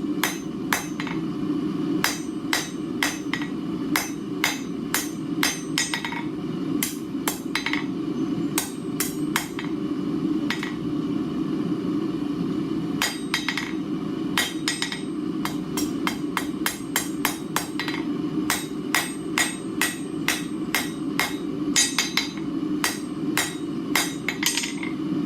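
Blacksmith's hand hammer striking a hot bar on the anvil, rounding it off from square toward an octagon: runs of quick blows about three a second with short pauses, each blow ringing. A steady low hum runs underneath.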